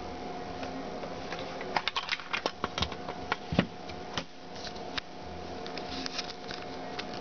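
Hard plastic clicks, snaps and clatter as a BASF Philips VCR-format videocassette shell is opened by hand and its top half lifted off, with one louder knock in the middle and lighter clicks later. A steady hum with a constant tone runs underneath.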